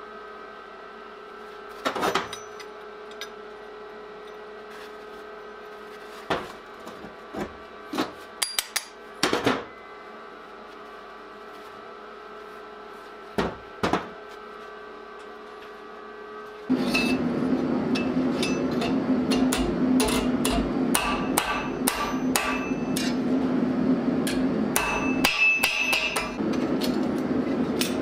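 Forged steel grappling-hook pieces clinking against each other and against a steel workbench as they are slotted together by hand, a few sharp clinks over a faint steady hum. About two-thirds of the way in, a louder steady drone starts, with many quick metallic clinks of steel on steel.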